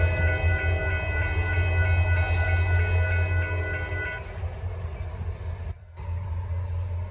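Railroad crossing bells ringing in a steady repeating pattern over the low rumble of a departing diesel train; the bells cut off about four seconds in, as the train has cleared the crossing and the gates start to rise.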